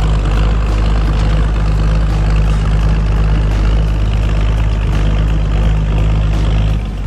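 A vehicle engine running steadily with a low, even hum. The hum changes and drops slightly just before the end.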